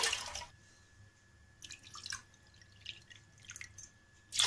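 Water poured from a glass bottle into a bowl: a splashing pour that stops about half a second in, a few faint small sounds, then the pouring starts again near the end.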